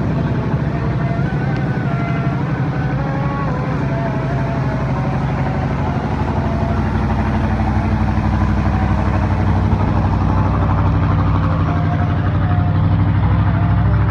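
Engine noise: a steady low drone of running motors, holding level with no clear rise or fall.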